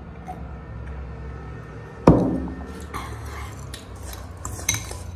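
A drinking glass set down on a table with one sharp knock about two seconds in, followed by lighter clicks and clinks of a glass bowl being handled on a plate.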